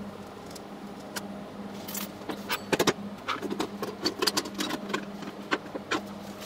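Metal clanks and clicks as a metal pump part and its clamp are handled and repositioned on a steel welding table, with a cluster of sharp knocks just before three seconds in and scattered clicks after it, over a steady low hum.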